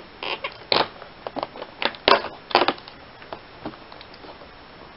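Cardboard advent calendar door being pushed in and torn open along its perforations: a quick run of sharp crackles and tearing snaps, loudest about two seconds in, dying down to light ticks after about three seconds.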